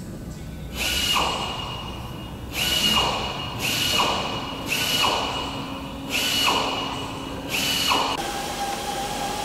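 A power tool run in six short bursts, each about half a second long with a high whine and a falling tone, spaced one to two seconds apart.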